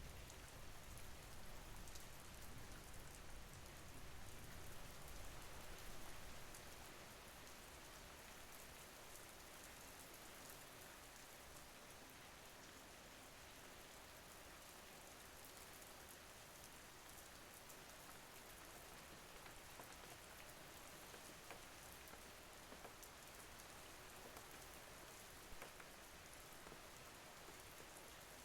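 Soft, steady rain: an even hiss with scattered faint drop ticks. A low rumble underneath fades out about six seconds in.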